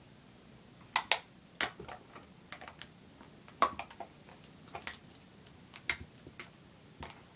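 Small plastic makeup cases clicking and tapping as they are handled: a dozen or so short, sharp clicks at irregular intervals, some in quick pairs.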